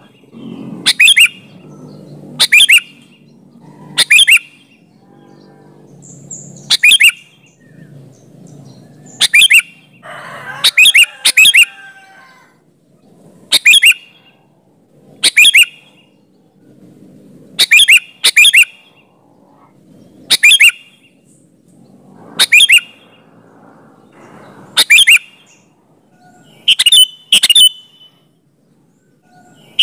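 Sooty-headed bulbul (kutilang) giving short, sharp, loud call notes, one every couple of seconds, a few of them doubled in quick pairs.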